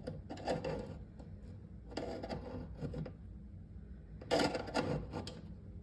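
A screwdriver prying and scraping at the small metal tab on a refrigerator roller wheel bracket: clicks and metal scrapes in a few bursts, the loudest about four seconds in.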